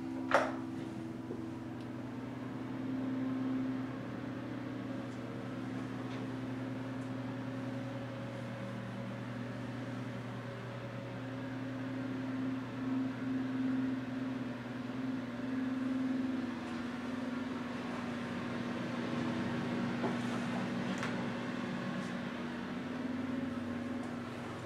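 A steady low mechanical hum, like a running fan or air-conditioning unit, with a few faint clicks.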